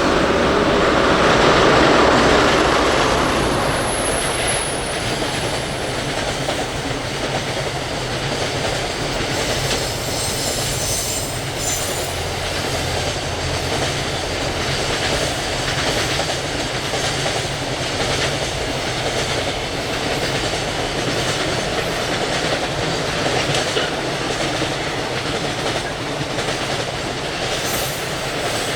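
A long train rolling past close by, its wheels clattering steadily over the rail joints. It is loudest in the first few seconds and then keeps up an even rolling noise.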